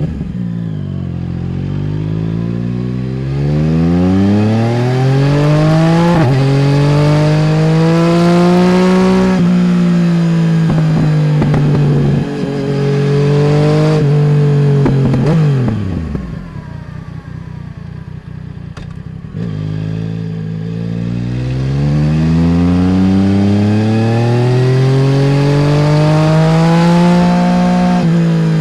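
Yamaha Tracer 900 GT's 847 cc inline three-cylinder, through a full Roads Italia aftermarket exhaust, pulling up through the gears with the pitch rising and dropping at each shift. About halfway through the throttle closes and the exhaust crackles on the overrun, then the engine pulls hard again with a long rising note.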